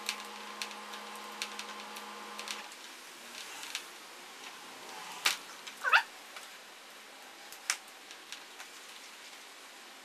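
Small clicks and rustles of hands working scooter wiring and wire nuts, with a faint steady hum for the first couple of seconds. Around five to six seconds in come the loudest clicks and a short wavering squeal.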